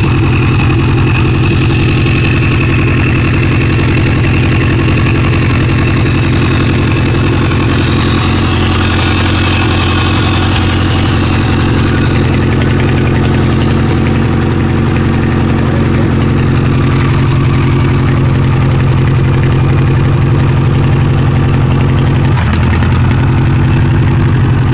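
Ford engine of a home-built pulling tractor with open chrome stack exhausts, running steadily. A little before the end its note drops and changes as the engine starts to fail: the fuel had been shut off at the tap and the line is running dry.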